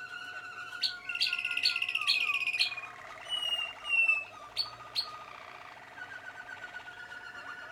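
Young Malinois Waterslager canaries singing: a soft continuous warble, with a louder run of rapid trills and sharp clicks about a second in, then two clear whistled notes a few seconds in.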